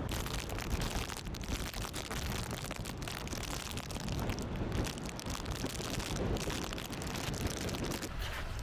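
Rain and wind noise on the microphone: a rough, steady rushing peppered with crackles.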